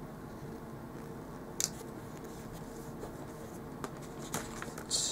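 Paper stickers and sticker sheets being handled on a planner page: a sharp crinkle about a second and a half in, a few light ticks, and a short paper rustle near the end, over a steady low room hum.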